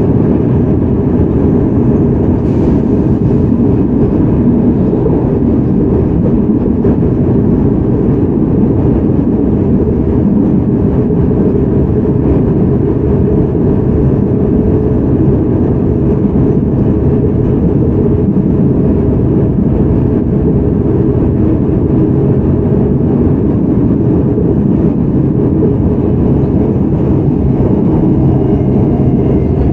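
Seoul Metro 4000 series subway train, with GEC Alsthom GTO-VVVF control, running steadily at speed: a continuous rumble of wheels on rail. There is one brief click early on, and faint steady tones come in near the end.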